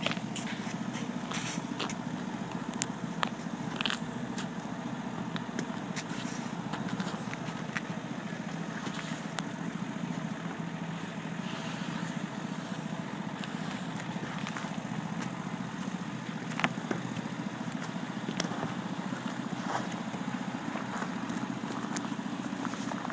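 A steady low motor drone with scattered crackles and clicks over it.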